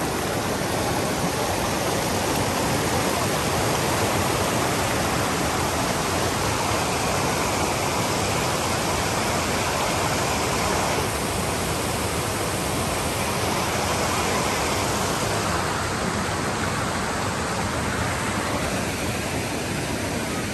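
Steady rush of water from a cascading mountain creek: an even, unbroken noise from low to high.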